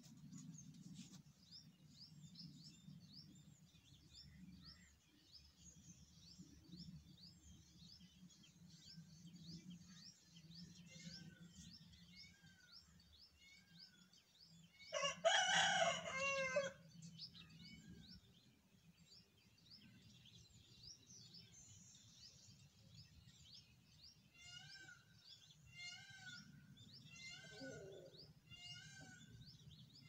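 A rooster crows once, loud and about a second and a half long, just past halfway. Around it, small birds chirp rapidly and faintly, and near the end a bird repeats a short falling call about once a second.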